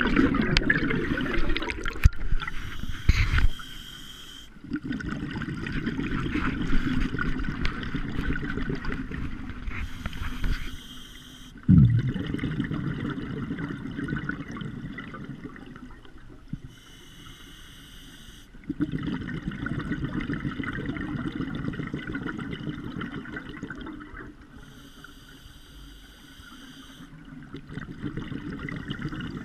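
A scuba diver's regulator breathing, recorded underwater: long spells of exhaled bubbles gurgling and crackling, alternating with shorter hissing inhalations through the demand valve, three of them, each a second or two long. A single short low knock comes about twelve seconds in.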